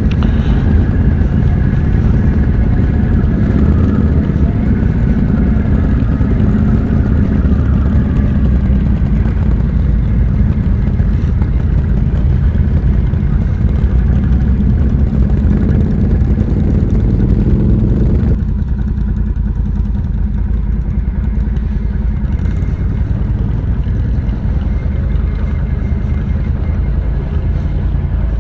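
ATV engine running steadily, heard close up. About eighteen seconds in, the higher part of the sound drops away abruptly, leaving mostly the low engine note.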